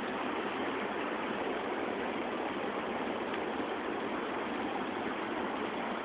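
Steady rush of river water pouring over a low waterfall and rapids, an even continuous noise with no breaks.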